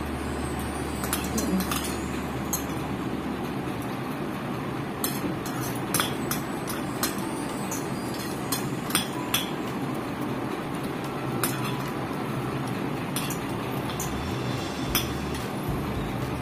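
Spoons and forks clinking against plates and bowls during a meal: scattered short clinks, about one every second or so, over a steady background hiss.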